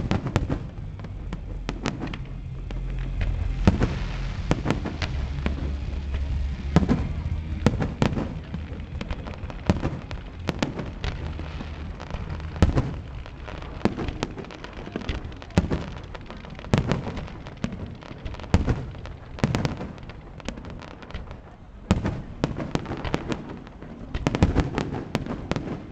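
Aerial fireworks bursting in a rapid, irregular series of loud bangs, with crackling and a low rumble between them.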